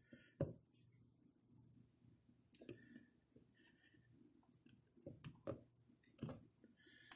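Mostly near silence with faint handling noise as a stainless steel basket strainer is pressed down into plumber's putty: one sharp click about half a second in, then a few soft knocks and rubs.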